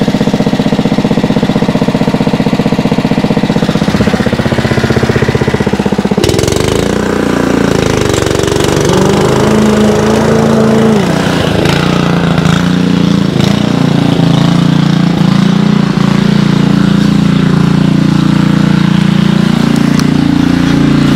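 Honda HRU216 commercial lawn mower's four-stroke petrol engine running close by, with a rapid even pulsing at first. About six seconds in the note changes abruptly, wavers up and down in pitch for several seconds, then settles into a steady drone.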